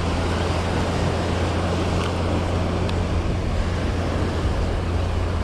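Light aircraft's propeller engine running steadily at idle, a constant low drone, over the wash of surf.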